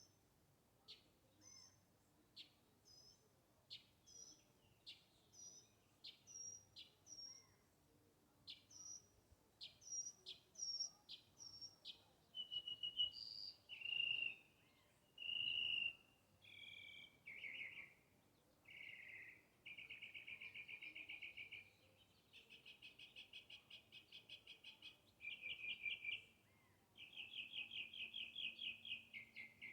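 Birdsong: a series of short, high chirps repeated about once or twice a second, giving way about halfway through to longer trills and buzzy, rapidly pulsed phrases.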